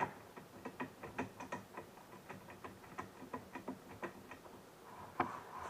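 Faint, irregular small metal clicks, about three a second, as a short screw is turned finger-tight into a metal dining-chair leg, with a sharper click about five seconds in.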